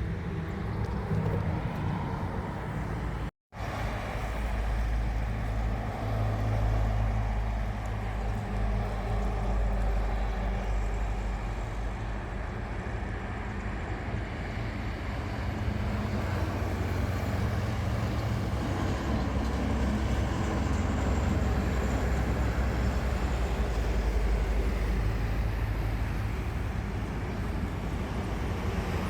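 Steady low rumble of distant engines, with the sound cutting out completely for a moment about three seconds in.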